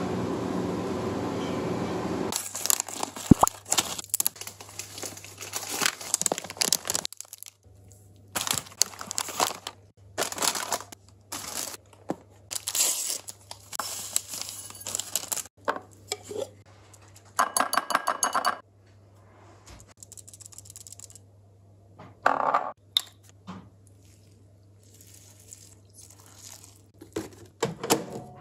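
Paper-and-plastic food packaging crinkling and tearing in many short bursts, among them an oat sachet torn open and poured into a ceramic bowl, with a few light clinks. A steady rushing noise fills the first two seconds.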